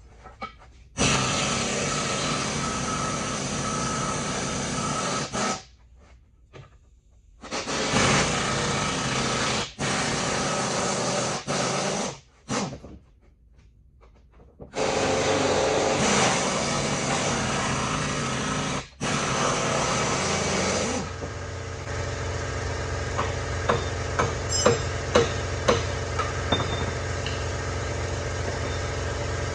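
Pneumatic impact wrench running in three long bursts, each several seconds and starting and stopping sharply, as it works the nuts at the leaf spring's axle seat. After that comes a steady mechanical hum with a few sharp clicks.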